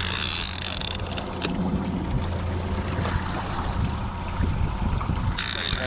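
Yamaha 115 outboard motor running in gear at trolling speed, a steady low hum over water rushing at the stern. A high-pitched whirring buzz sounds for about a second at the start and again near the end.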